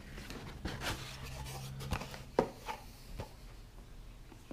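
Cardboard product box being opened by hand, its flip-top lid lifted: cardboard rubbing and a few soft scrapes and clicks, the sharpest about two and a half seconds in.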